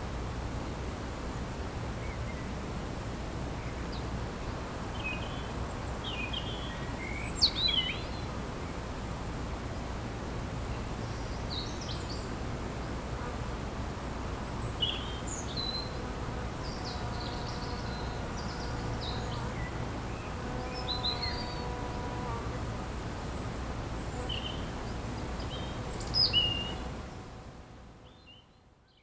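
Songbirds chirping and calling in short phrases, the loudest calls about a quarter of the way in and near the end, with a bee buzzing steadily close by through the middle, over a steady low background hum. The sound fades out at the end.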